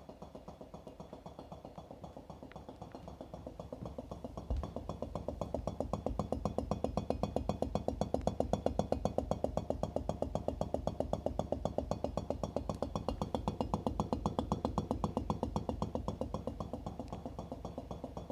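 Whirlpool GS6NBEXRQ00 side-by-side refrigerator knocking rapidly and evenly, several knocks a second, louder after a single thump a few seconds in and easing off near the end. The knocking is loudest at the bottom of the fridge, which the owner takes as a sign that it comes from the compressor.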